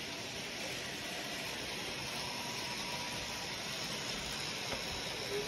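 Toy trains running around plastic-track loops, a steady whirring and rolling of their motors and wheels.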